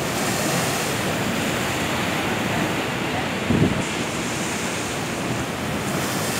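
Sea waves breaking and crashing against shoreline rocks: a steady rush of surf, with a brief low thump a little past halfway through.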